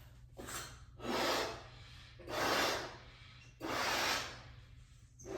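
Balloon being blown up: a series of strong puffs of air, about one every second and a half, each lasting under a second.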